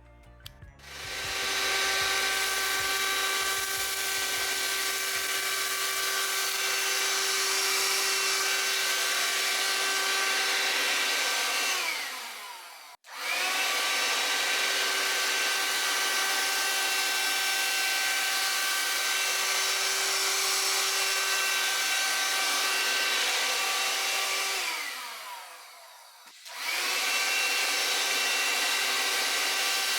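Cordless hand-held vacuum cleaner motor (Parkside PHSSA 20-Li C1, 20 V) switched on and running with a steady whine and airflow hiss. It is switched off about 12 seconds in, winding down with falling pitch, and restarts at once. It is switched off again about 25 seconds in and comes back on shortly after.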